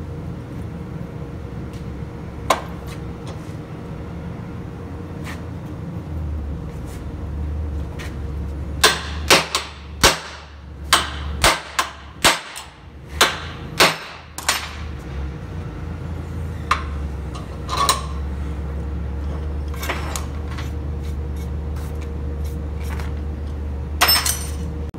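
Metal tools and parts knocking and clanking on a steel workbench: scattered single clanks, then a quick run of about ten sharp strikes in the middle and a short clatter near the end. A steady low hum runs underneath.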